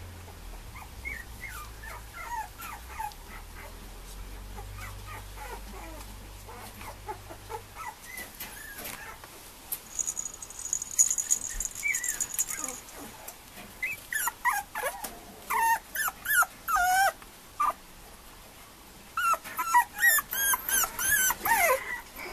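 Mame shiba puppy whimpering and yipping in short high calls that slide in pitch, a few scattered at first, then quick runs of them in the second half.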